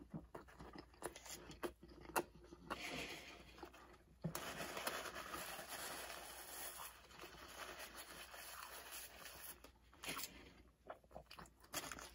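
Close-miked chewing of a bite of bacon cheeseburger, then a paper napkin rubbed over the mouth for several seconds, and a few crinkles of a paper burger wrapper near the end.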